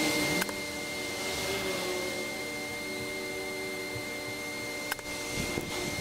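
Two short, sharp smacks of arrows striking a foam 3D deer target, one about half a second in and one near five seconds, over a steady hiss with a faint hum.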